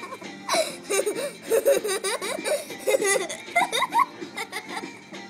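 Laughter: someone giggling in short, rapid bursts.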